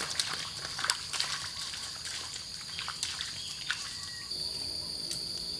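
Insects shrilling in a steady high-pitched drone, growing louder a little after four seconds in. Over it, irregular footsteps of barefoot walkers on wet mud, which fade out before the end.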